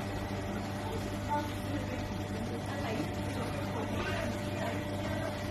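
A steady low hum, as from a running motor or machine, with faint voices talking in the background.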